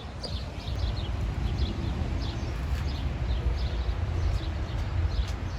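Small birds chirping over and over in short, quick falling notes, above a steady low rumble.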